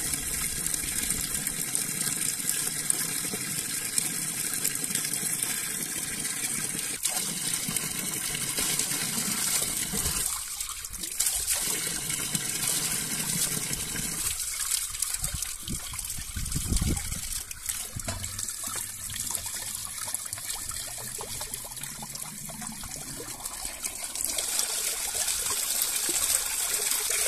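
Water running steadily from a pipe spout in a stone wall, pouring into a clay jug and splashing over it as the jug is filled.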